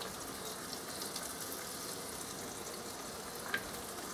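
Coated mutton pieces deep-frying in hot oil in a kadhai: a steady, fairly quiet sizzle with fine crackling, and a light click about three and a half seconds in.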